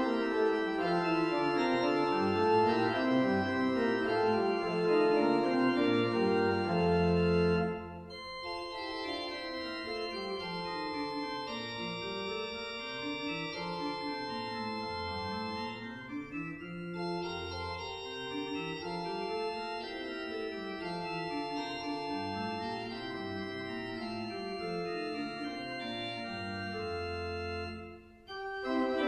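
Church organ playing a slow prelude, sustained chords over a moving bass line. After the first quarter it drops to a softer passage, then breaks off briefly near the end before louder playing resumes.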